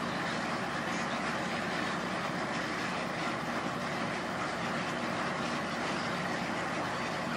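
Steady, dense din of thousands of egrets calling at once as they settle into a roost in the trees.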